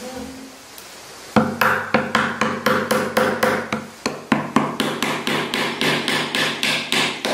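A chisel being driven into a hardwood board with quick, even mallet taps, about four strikes a second, starting about a second and a half in.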